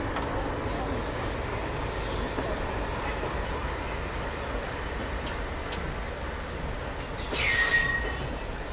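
Passenger coach running steadily over the rails with a continuous rumble of wheels on track. About seven and a half seconds in, a short, high wheel squeal rises over it.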